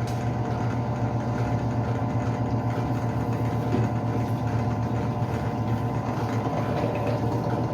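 Fortg FG009 bench drill running steadily, its motor humming while the bit drills into a 2 mm steel plate lubricated with oil.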